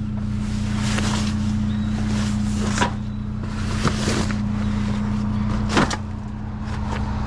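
A vehicle engine idling with a steady low hum, while rustling and a few sharp knocks come from things being pulled about and handled.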